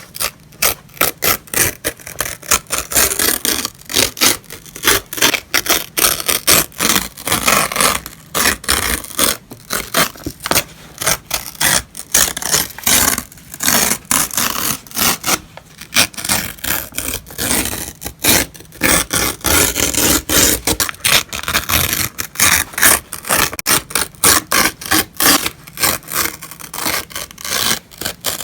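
Paper being torn by hand, one crisp rip after another, some short and some drawn out, a few tears each second.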